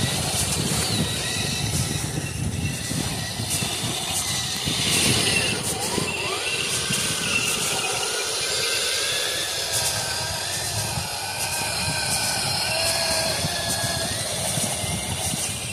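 Tongde 1/16-scale RC M60 tank driving over snow: a steady mechanical running noise from its drive and tracks, with a whine that rises and falls in pitch as the tank's speed changes and it turns.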